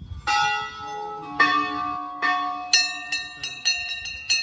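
Hanging brass temple bells struck by hand, bells of different pitches each ringing on with a long tone. Three spaced strikes, then from about the middle quicker strikes, roughly three a second.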